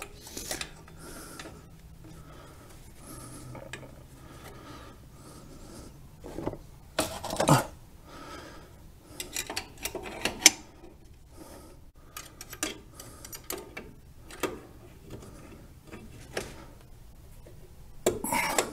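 Pliers and a screwdriver scraping and clinking against the steel drum brake shoes and hardware while a brake spring is stretched and hooked into place. There are sharper metal knocks about seven, ten and eighteen seconds in.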